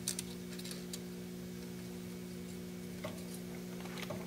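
Steady electrical hum from a CNC-converted Grizzly G0602 lathe, with a few separate sharp clicks as the tool is jogged in a little at a time toward a shim held against the part.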